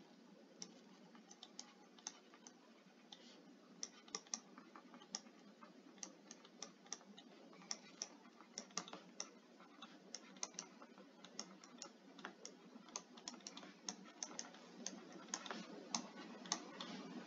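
Faint, irregular clicks of a stylus tapping on a tablet screen during handwriting, roughly one or two a second, coming more often near the end.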